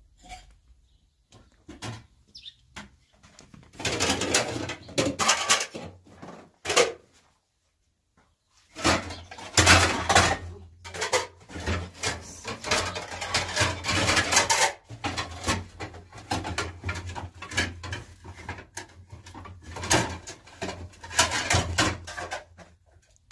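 Dishes and plastic kitchenware being handled on shelves in a small room: irregular clattering, knocks and scraping, with a short silent gap about eight seconds in.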